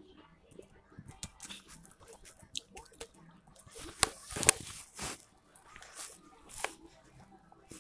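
Laptop keyboard keys clicking as a short line of text is typed, in irregular runs of taps. Louder rustling and knocks about four seconds in.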